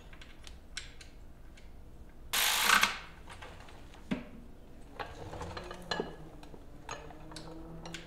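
Plastic wiring-harness connector being worked onto a sensor on a Honda K24 engine: scattered small plastic clicks and rattles, a short loud scraping rustle about two and a half seconds in, and a sharp click about four seconds in.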